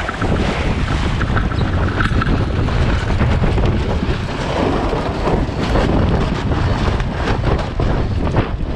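Heavy wind buffeting the microphone aboard a sailboat, a steady loud rumble over a rushing hiss of wind and water.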